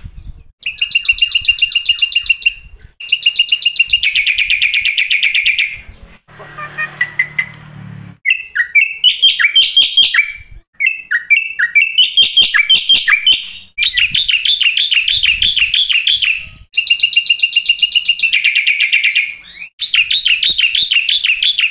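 Black-winged myna (jalak putih) song: loud phrases of fast, repeated chirping trills, each a second or two long with short pauses between, and a harsher, noisier call about six seconds in.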